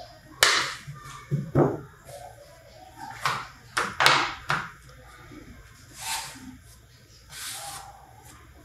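Wet sourdough dough being slapped and pressed by hand on a floured wooden table: a run of sharp thumps and slaps in the first half, then a couple of softer rubbing sounds.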